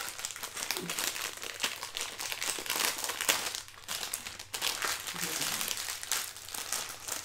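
Packaging of a pineapple ice lolly crinkling and crackling as it is handled and unwrapped: a dense run of irregular crackles.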